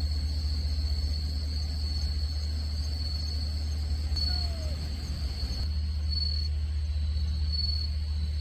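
Crickets trilling steadily in the night undergrowth, a continuous high chirring that swells in short pulses, over a steady low hum.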